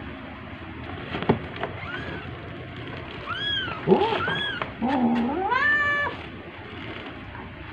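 Newborn kittens mewing: several short, high-pitched mews, joined by louder, lower drawn-out calls between about four and six seconds in.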